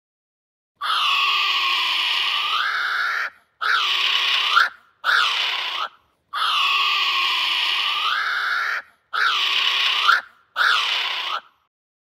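An unidentified animal's calls: one long drawn-out call followed by two shorter ones, each ending with a rise in pitch. The same set of three calls is heard twice.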